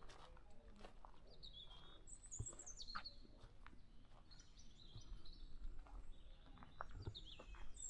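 Birds chirping and twittering in short, high phrases that step downward in pitch, several times over, with faint scattered clicks and knocks in between.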